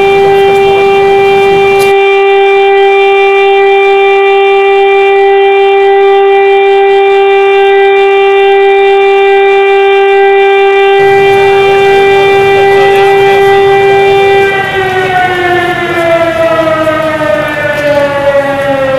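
Siren sounding one loud, steady tone for most of the time, then winding down, its pitch falling steadily over the last few seconds.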